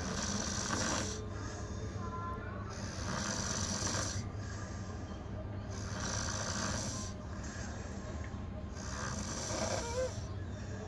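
A person snoring, four snores evenly spaced about three seconds apart.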